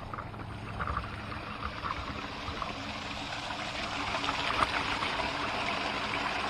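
Irrigation well pump running with water rushing and spattering through the line over a steady low hum, the flow growing louder over the last couple of seconds. The well is being run to flush sand out of the water.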